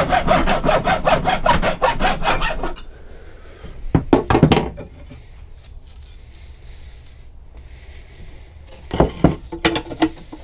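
Hacksaw cutting half-inch aluminum channel with quick, even back-and-forth strokes, stopping almost three seconds in. Later come two short bursts of knocks and clatter.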